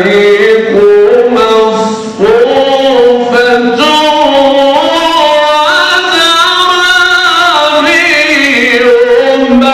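A man's solo voice in melodic, drawn-out Quran recitation (mujawwad tajweed), holding long ornamented notes that bend up and down. There is a short break about two seconds in before the next phrase.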